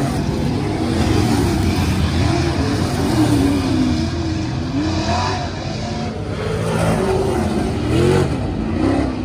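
Several race car engines running laps together, their pitch rising and falling over and over as they speed up and slow down around the track.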